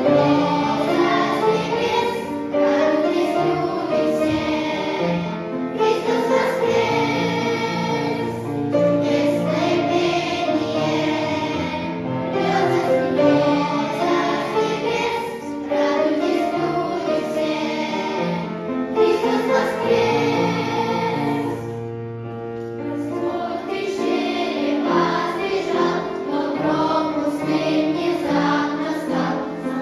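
Church choir singing a Christian song with musical accompaniment. It eases into a short lull between phrases about two-thirds of the way through.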